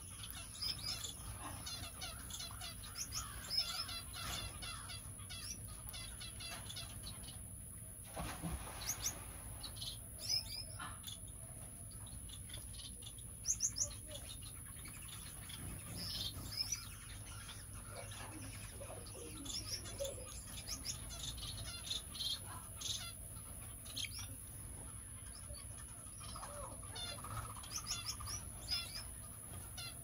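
Small aviary birds, finches and Bourke's parakeets, chirping: many short, high chirps scattered throughout, with a short rush of wingbeats about eight seconds in.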